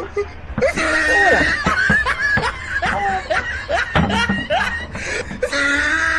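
A person laughing: a run of short snickers and chuckles.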